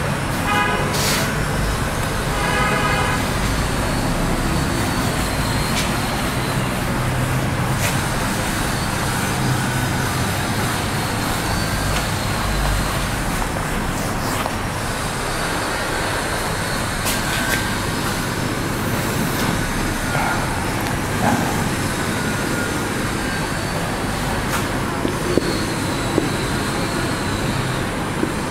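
Steady road traffic noise with two short vehicle-horn toots, about one and three seconds in, and a few light taps.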